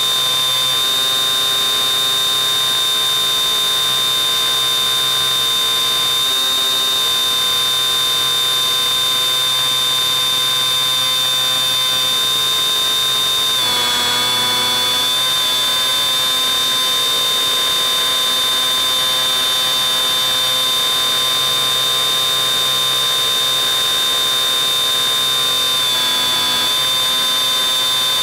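Electric brushless motor and propeller of a Bixler 3 model plane running steadily in flight, a high whine picked up by the onboard FPV camera's microphone. Its pitch shifts slightly about halfway through and again near the end, as the throttle changes.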